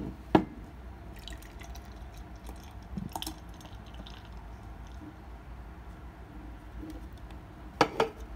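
A few sharp little taps or clicks over a faint low hum: one about half a second in, a softer one about three seconds in, and a quick double tap near the end.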